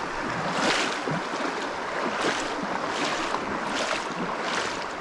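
River water rushing over rocks and shoals: a steady rushing noise that swells and eases every second or so.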